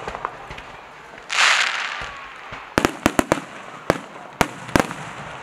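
Aerial fireworks shells bursting with sharp bangs: a hissing crackle about a second in, then a quick cluster of four bangs around three seconds and a few more spaced out after.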